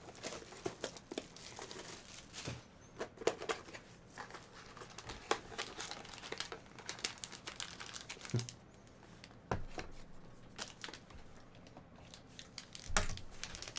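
Trading card pack wrappers crinkling and tearing as packs are handled and opened, with scattered light clicks and snaps.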